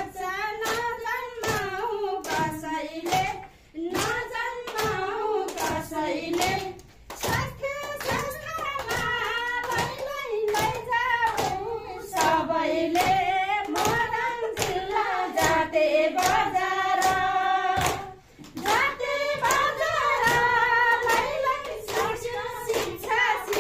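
Women singing a Nepali awareness song in unison, with steady rhythmic hand clapping keeping the beat at about two claps a second; the singing pauses briefly twice between lines.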